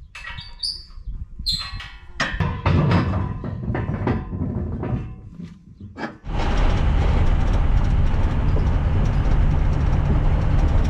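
Scattered clicks, knocks and a few short high squeaks, then about six seconds in a steady vehicle engine and road noise starts suddenly and holds even.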